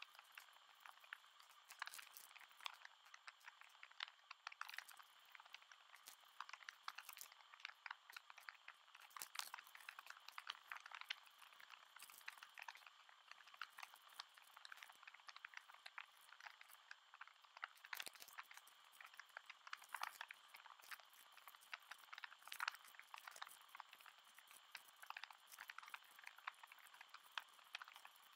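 Faint crinkling and rustling of small plastic zip-lock bags of diamond-painting drills being handled and cut open with scissors: a dense run of small clicks and crackles.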